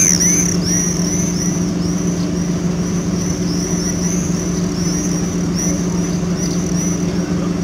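SM42 diesel shunting locomotive's engine running steadily as it crawls along, with repeated short high metallic squeals from its wheels, about twice a second, fading toward the end.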